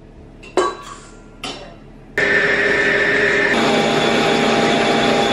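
Two light clinks, then a Cosvalve stand mixer's motor starts abruptly about two seconds in and runs loud and steady, its tone changing about a second later.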